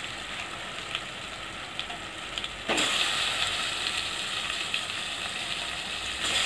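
Raw chicken pieces sizzling in hot oil with fried onions and tomatoes. The sizzle jumps suddenly louder about two and a half seconds in, as more chicken goes into the pot, and stays up.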